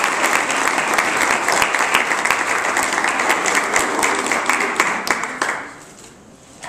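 Audience applauding, dense clapping that dies away about five and a half seconds in.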